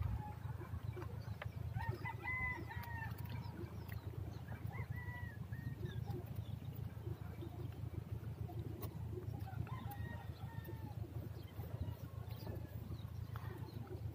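Faint distant chickens calling, with a rooster crowing, over a low steady rumble.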